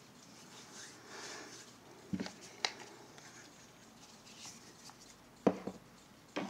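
Makeup products and tools being handled: soft rustling with a few light clicks and knocks, a pair a little past two seconds in and another pair near the end.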